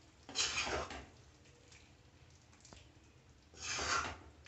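Two short, wet scrapes about three seconds apart: a spoon scooping thick prawn curry from a metal pan and dropping it into a glass bowl.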